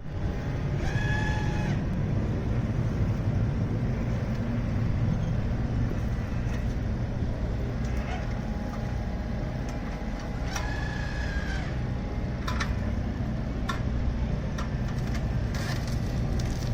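Engine of heavy machinery running steadily with a low drone, with two short high tones about a second in and again past the middle, and scattered sharp clicks and knocks.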